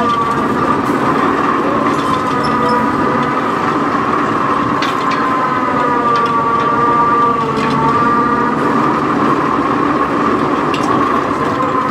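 Boom truck's diesel engine running steadily at raised speed with a high whine, its pitch sagging a little about seven seconds in as the winch takes the load of a hay bale.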